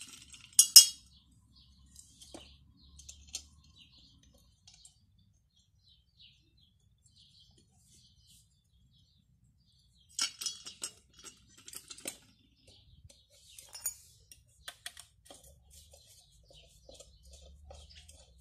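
Metal clinks and clangs as the steel end cover and housing parts of a pump's electric motor are handled and fitted during reassembly: a sharp clatter just under a second in, then a quick run of clinks about ten to twelve seconds in, and a few single clicks after.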